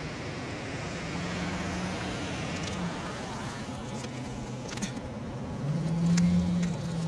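An engine humming over steady outdoor background noise. The hum swells twice and is loudest about six seconds in, with a few faint clicks.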